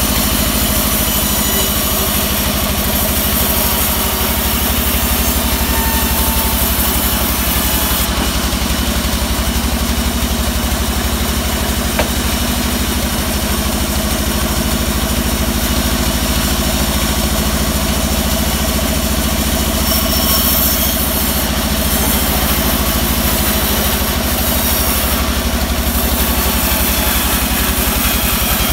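Vertical band sawmill running steadily as it rips a teak log lengthwise, with one short click about halfway through.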